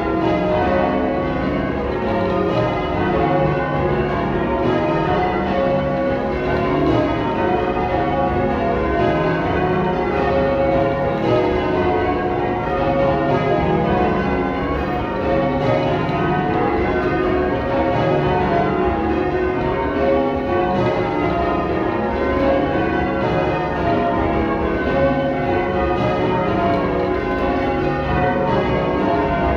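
Change ringing on a ring of twelve church bells, tenor 28-2-16 cwt in C#, the bells striking one after another in a continuous, even stream of overlapping notes.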